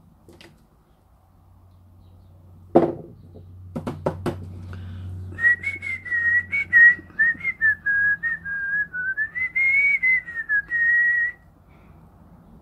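A person whistling a wandering tune of short and held notes for about six seconds, a few seconds in. Before it come a sharp knock and a few quick clicks.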